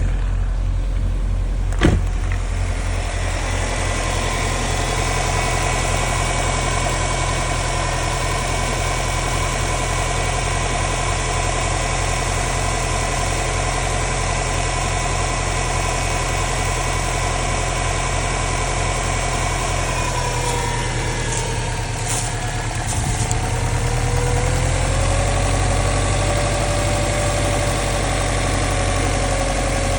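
Subaru STI's turbocharged flat-four engine idling steadily after a cold start. A single sharp click comes about two seconds in, and about two-thirds of the way through, the pitch of the idle shifts, dipping briefly before settling into a new steady tone.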